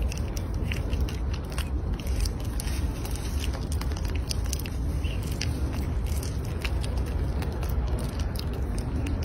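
Baby macaques biting and chewing banana: scattered small wet clicks and smacks over a steady low rumble.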